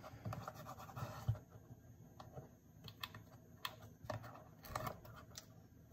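Faint, irregular light clicks and taps of hands handling a small cardstock box and double-sided tear tape.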